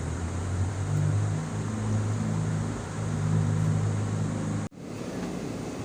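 A low, steady engine-like hum from a motor running, which breaks off abruptly near the end.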